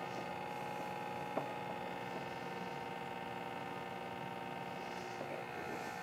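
Ascaso Dream Up espresso machine's vibratory pump running steadily while an espresso shot pours, a constant tone with many overtones. One light click about a second and a half in.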